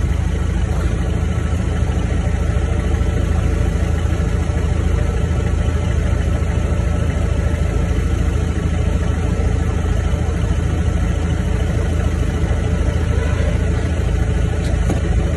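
Forklift engine running steadily, heard from inside the operator's cab: a constant low hum with no change in pace.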